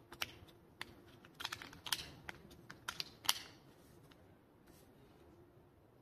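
Cold Steel Kyoto II knife handled in its hard plastic Secure-Ex sheath: a quick, uneven run of about eight light clicks and taps over the first three seconds or so, then quiet.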